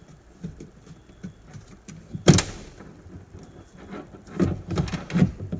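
A car door latch assembly being worked into a tight fit inside the door, knocking against the door's metal shell. There is one sharp, ringing clack about two seconds in, then a run of knocks and rattles near the end.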